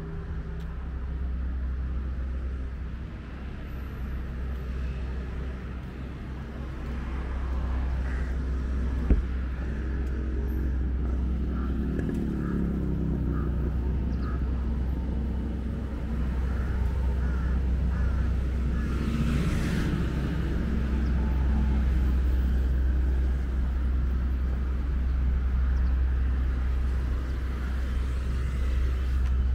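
Motor vehicle traffic: a steady low engine hum throughout, with engine notes rising and falling twice as vehicles pass, and a brief hiss about two-thirds of the way in.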